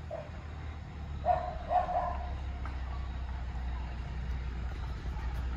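A small dog barks twice in quick succession about a second in, over the steady low rumble of a truck engine running.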